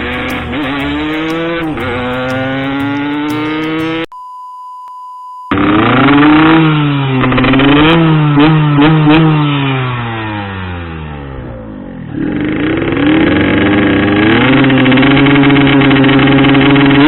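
Yamaha RX-King two-stroke motorcycle with a Boban 'Nuklir' aftermarket exhaust being ridden, the engine pitch rising and falling as it accelerates and eases off through the gears. About four seconds in, a steady beep tone briefly replaces it for over a second.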